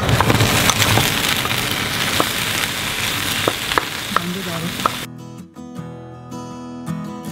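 Potatoes and cauliflower sizzling in hot oil in a frying pan, stirred with a wooden spoon that clicks and scrapes against the pan. About five seconds in the sizzle cuts off abruptly and acoustic guitar music takes over.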